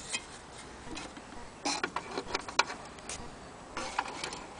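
Irregular clicks and knocks from hands handling the wooden case of an antique German wall clock, some coming in quick clusters.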